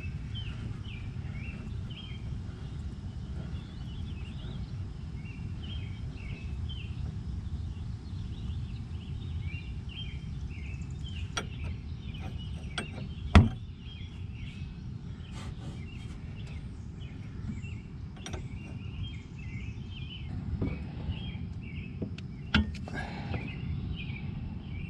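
A few sharp metal clinks of hand wrenches on the tie rod while a new tie rod end is threaded on, the loudest a single clank about halfway through. Underneath is steady low background noise, with birds chirping.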